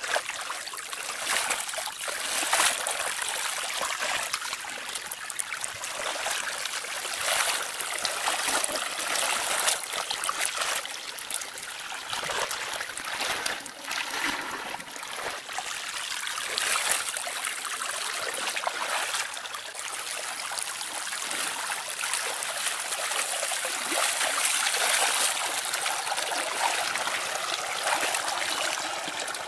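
Running water: a steady stream of water flowing and splashing, with irregular louder splashes throughout.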